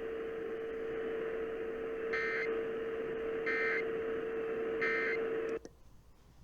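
Emergency Alert System end-of-message signal: three short bursts of SAME digital data tones about 1.4 seconds apart, marking the close of the test. They play over radio hiss and a steady low hum, and the audio cuts off to near silence about five and a half seconds in.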